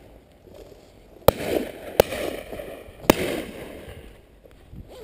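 Three sharp knocks, the first two close together and the third about a second later, each trailing into a short scratchy noise.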